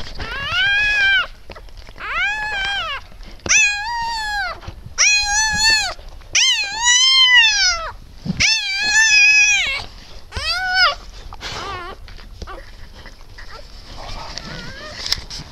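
Newborn Siberian husky puppy crying: about eight high-pitched cries, each about a second long and arching up and down in pitch, coming in quick succession, then tailing off into fainter sounds.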